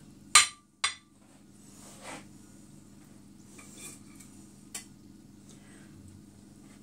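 A metal perforated serving spoon clinks sharply twice against a serving dish within the first second, the first clink ringing briefly, followed by a few faint scrapes and a light tap as food is spooned out.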